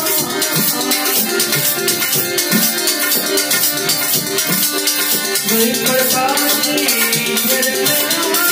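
Harmonium playing a bhajan melody in held reedy tones, with a hand drum and jingling, rattling hand percussion keeping a steady beat.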